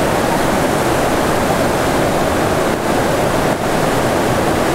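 Ravana Falls, a large waterfall, rushing steadily: a loud, even noise of falling water.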